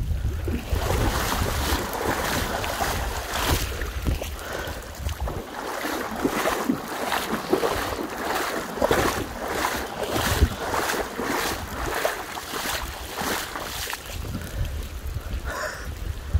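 Bare feet wading through ankle-deep flowing floodwater, splashing with each step, about two steps a second through the middle stretch. Wind rumbles on the microphone at the start and near the end.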